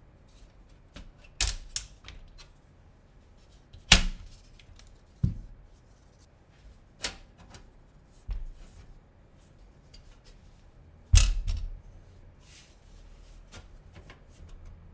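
Irregular hard clicks and knocks from computer parts being handled and fitted during a PC build, about eight in all with pauses between, the loudest about four seconds in and near eleven seconds.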